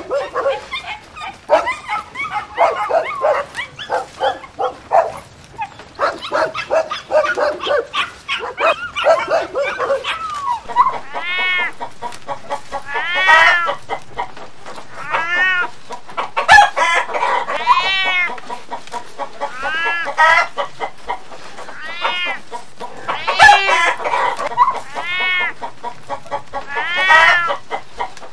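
Dogs barking and yipping for about the first ten seconds, then a chicken clucking in a run of separate calls that rise and fall in pitch, one every second or two.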